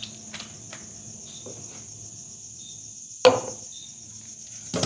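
Steady high-pitched chirring of crickets in the background. A few light ticks early on and one sharp knock about three seconds in, with a short ring after it, as a plastic blender cup is handled on the counter.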